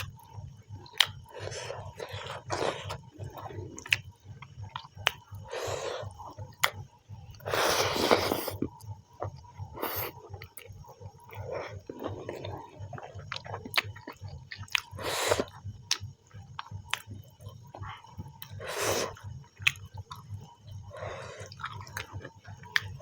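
Mouth sounds of eating chicken and rice: chewing with many small wet clicks and smacks, and a few longer noisy bursts, the biggest about eight seconds in.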